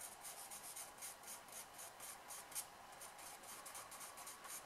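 Faint scratching of a purple pastel pencil on paper, in short quick strokes a few times a second.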